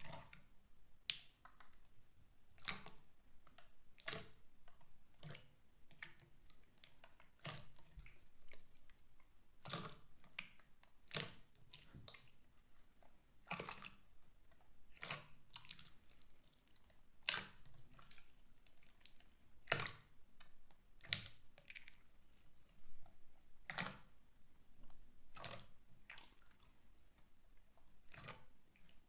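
Slime being squeezed and pressed by hand, giving faint wet squishes and sharp little pops, irregularly about once a second.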